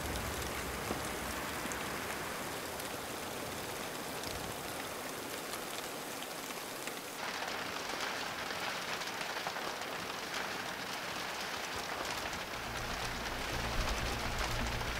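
Steady rain falling, an even hiss with scattered fine drop ticks. Low background music comes in near the end.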